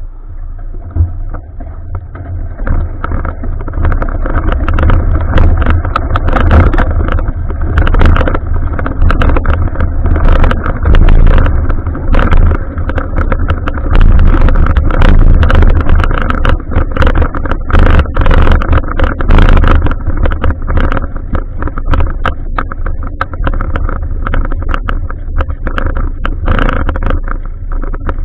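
Wind rushing over an action camera's microphone during a bicycle ride, with steady low rumble and frequent clicks and rattles from the bike going over the road.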